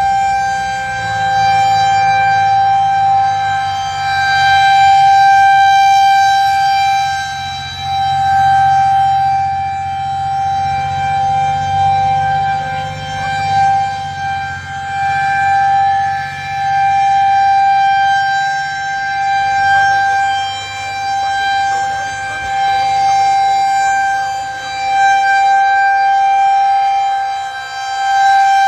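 Federal Signal 2001-130 rotating outdoor warning siren sounding a steady tone for a tornado warning. Its loudness swells and fades every three to four seconds as the rotating horn sweeps past. A low rumble runs underneath for much of the time and fades out toward the end.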